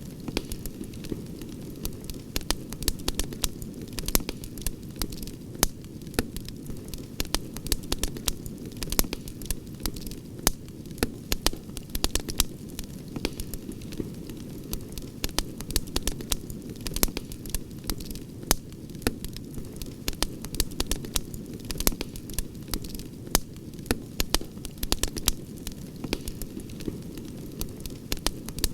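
Outdoor wood campfire crackling: frequent irregular sharp pops and snaps over a steady low rumble.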